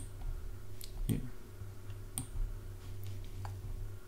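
Computer mouse clicking a handful of times at irregular intervals over a low steady hum.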